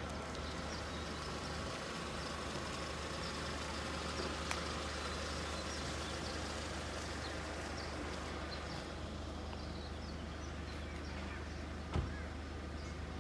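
Outdoor ambience in wooded temple grounds: a steady low rumble and hiss with faint, scattered bird chirps, and a single sharp knock about twelve seconds in.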